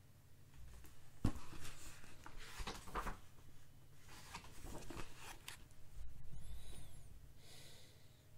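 Pages of a book being leafed through and turned: a run of paper rustles and flutters with a sharp knock about a second in, then a duller handling sound as the book is moved.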